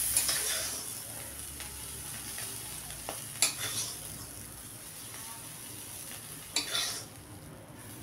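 Small shrimp sizzling in oil in a metal kadai while a metal spatula stirs them and scrapes across the pan three times: at the start, about three and a half seconds in, and near the end.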